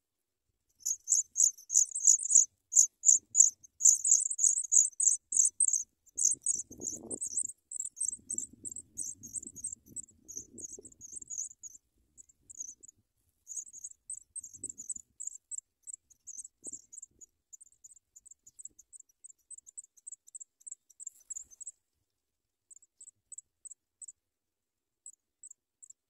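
African pipit nestlings begging: a rapid run of thin, high-pitched cheeps, several a second, loudest while the parent is feeding them, then thinning to scattered cheeps near the end. A brief low rustle of movement in the dry grass nest comes about a quarter of the way in.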